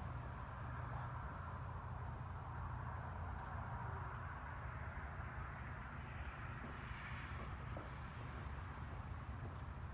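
Crickets chirping, short high chirps about once or twice a second, over a steady hiss and low rumble, with no firework bangs.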